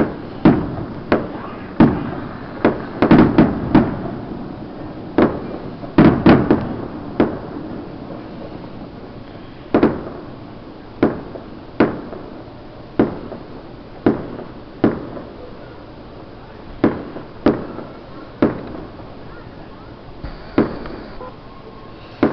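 Aerial fireworks bursting: a quick run of sharp bangs, each with an echoing tail, for the first several seconds, then single bangs about once a second that thin out toward the end.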